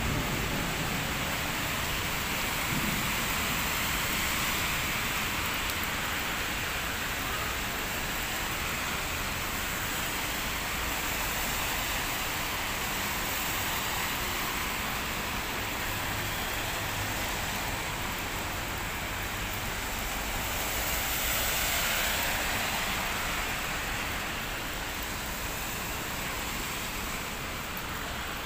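Steady rain falling, with the hiss of traffic on a wet road, swelling slightly about two-thirds of the way through.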